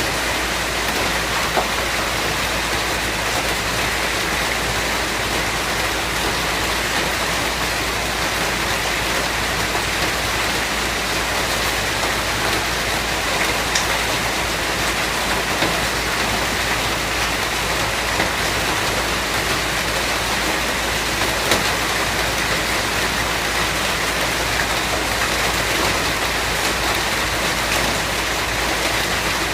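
Steady rain falling, an even hiss with the odd single drop ticking out.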